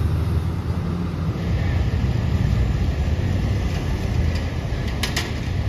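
2009 Orion NG city bus running in slow street traffic: a steady low rumble, with a couple of sharp clicks about five seconds in.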